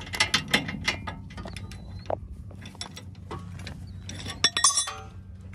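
Rapid metallic clicks and clinks of steel tools and jack gear being worked under a car's rear wheel arch, with a quick burst of ringing clinks about four and a half seconds in.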